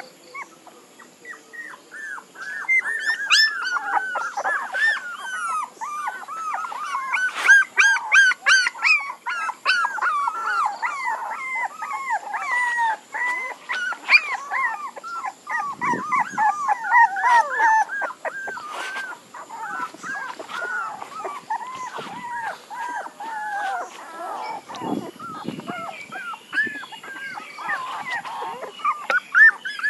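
Puppies whimpering and crying: a near-continuous stream of short, high-pitched whines and yelps, several a second, rising and falling in pitch.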